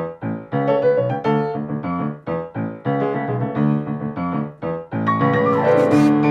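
Piano playing short, rhythmic chord stabs with brief gaps between them, then about five seconds in moving into fuller, held chords.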